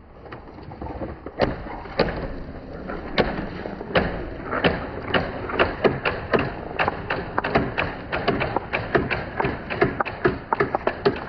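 Marbles and wooden balls rolling down a wooden marble-run track, a steady rolling rumble with hard clacks as the balls hit the track and each other. The clacks grow more frequent, several a second by the end.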